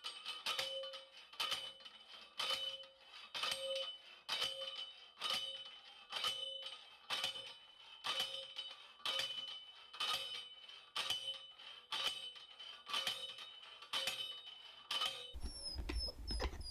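A steel T-post driver pounding a steel T-post into the ground: loud metallic clangs that ring on, about three strikes every two seconds, stopping about a second before the end.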